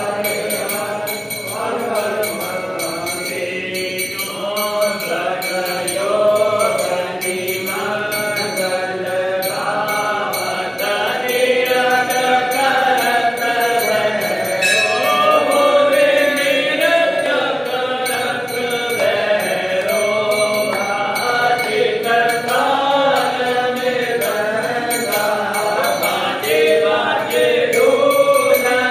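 Hindu mantras chanted in a steady, melodic voice, with a brass hand bell ringing along.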